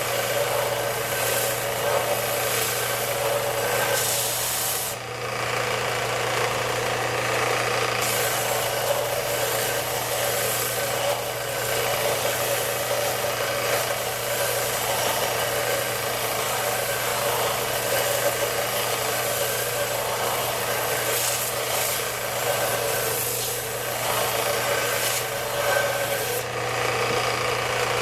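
Continuous scraping of wood over a steady machine hum, with the scraping dropping out for a few seconds about five seconds in and again near the end.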